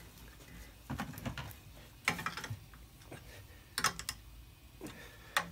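Short metallic clicks and taps in small groups, roughly a second apart: a brake line being clamped into a double-flaring tool's bar held in a bench vise and tightened down with a wrench.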